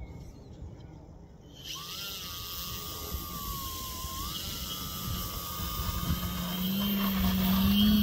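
Radio-controlled model autogyro's motor and propeller starting suddenly about two seconds in and running with a steady whine, which grows louder toward the end as it powers up for the takeoff run.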